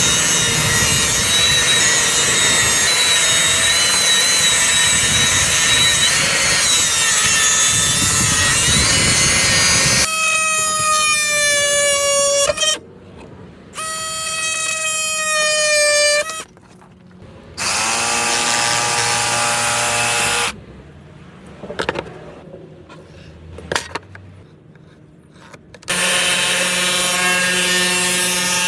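Cordless power saw running and cutting wood. A long cut of about ten seconds is followed by a few shorter runs that start and stop abruptly, with a couple of knocks in the quieter gaps between them.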